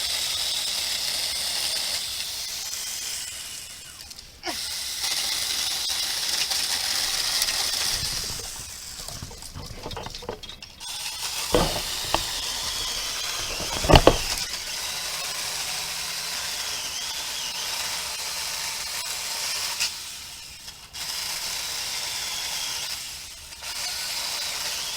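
Saker mini battery-powered chainsaw running in bursts, cutting off and starting again several times as the trigger is released and squeezed, while trimming bush limbs. Two sharp knocks about halfway through, the second the loudest sound.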